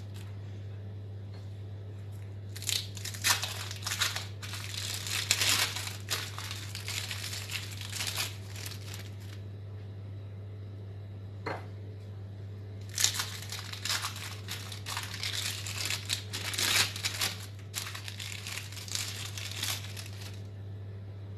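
Thin plastic film crinkling and tearing as individually wrapped cheddar cheese slices are peeled open, in two spells of rustling with a single click between them, over a steady low hum.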